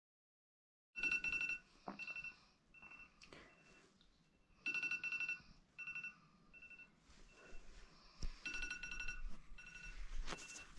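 An alarm beeping faintly in short repeated bursts of one high tone, going on unanswered. A few soft knocks near the end.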